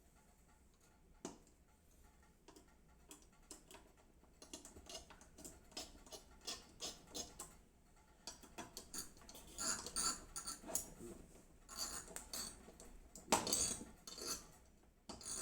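Small metallic clicks, clinks and taps of an AMD Wraith Stealth stock CPU cooler and its mounting screws being handled and fitted with a screwdriver. The clicks are sparse at first, then come thick and irregular from about a third of the way in, loudest about two-thirds through and near the end.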